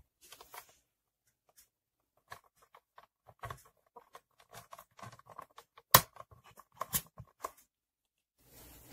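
Plastic buttons of a HOLT steam iron being pressed and snapped into the iron's plastic handle by hand: a run of small plastic clicks and rubbing, with a sharp snap about six seconds in and another about a second later.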